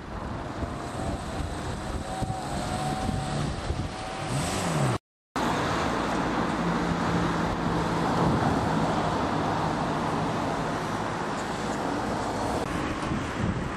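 Road traffic: cars passing on a street, with a steady engine hum through the middle of the stretch. The sound cuts out briefly about five seconds in.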